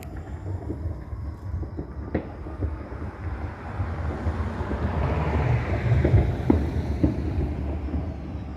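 Rumble of a passing vehicle, swelling to its loudest about six seconds in and then easing, with a few sharp pops scattered through it.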